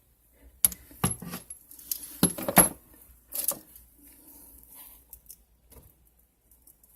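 Sharp metallic clinks and clatter of small plumbing parts or tools being handled, several in the first three or four seconds, then dying down to a few faint ticks.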